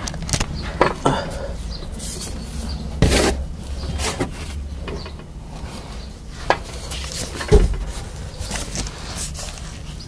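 Handling noise as a handheld camera is moved about under a car: scattered knocks and rubbing, with sharper knocks about three seconds in and again near seven and a half seconds.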